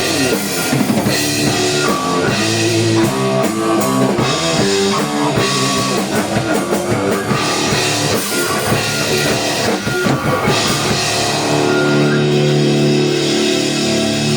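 Rock band playing live in rehearsal: electric guitars and a drum kit drive a heavy riff. About eleven seconds in, the drums and cymbals drop back and the guitars ring on long held notes.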